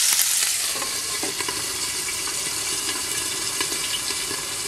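Salmon steaks frying in olive oil and butter in a frying pan, sizzling steadily with scattered small pops.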